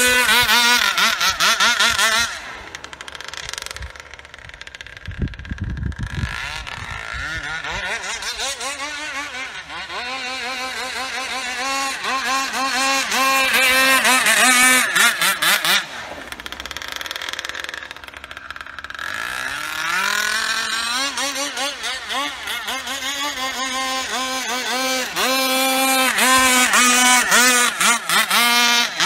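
Petrol-powered RC racing boat's two-stroke engine running at high revs as the boat skims across the water, its high-pitched note wavering throughout. It is loudest at the start, around 14 s and again near the end, dropping back after about 2 s and around 16 to 19 s, with a rising sweep in pitch as it is throttled up again about 19 s in.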